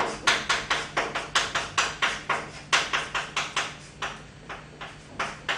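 Chalk tapping and scraping on a chalkboard as kanji are written stroke by stroke: a quick run of sharp clicks, about five a second, with a short pause about four seconds in before the clicks resume.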